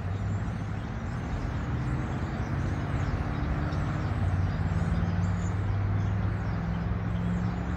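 GE ES44AC diesel-electric locomotives' V12 engines running as the train passes: a steady low drone, growing a little louder after the first few seconds.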